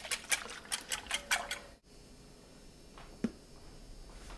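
Wire balloon whisk beating pancake batter in a glass bowl, its wires clicking rapidly and evenly against the glass. The whisking stops abruptly about two seconds in, followed by a couple of light knocks.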